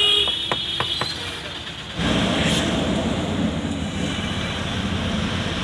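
A vehicle horn toots briefly at the start, followed by a few sharp clicks. About two seconds in, a steady engine and road rumble rises, heard from inside the moving bus's cab.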